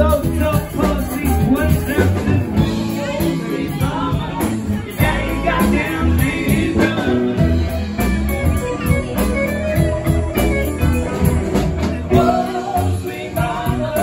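A live band playing in a small club: electric guitar, electric bass, mandolin and drum kit together at a steady beat, with a voice singing over them at times.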